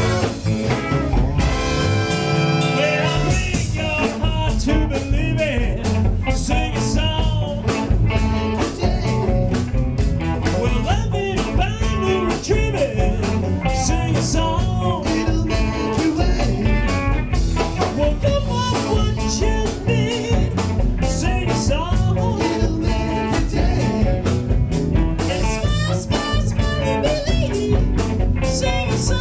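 Live band playing a blues-rock number, loud and steady, with drums, guitar and a singer.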